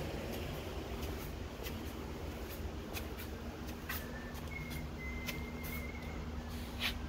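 Quiet room background with a steady low hum and scattered small clicks and ticks. A faint, thin high whistle sounds briefly about midway.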